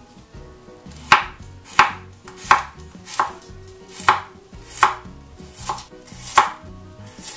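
A kitchen knife slicing garlic cloves on a wooden cutting board: about nine sharp knocks of the blade hitting the board, evenly spaced at roughly one every three-quarters of a second, starting about a second in.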